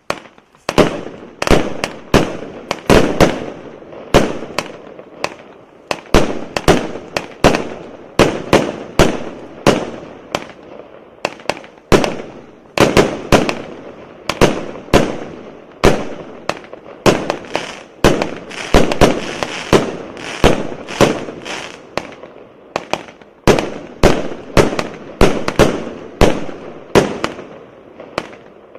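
A 49-shot 0.8-inch firework cake firing shot after shot, a sharp bang about every half second, each fading out in a short echo.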